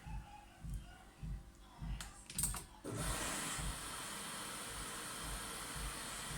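Washing machine running, with a low thump about twice a second, two sharp clicks a little after two seconds in, then a steady hiss that switches on suddenly just before three seconds in and keeps going.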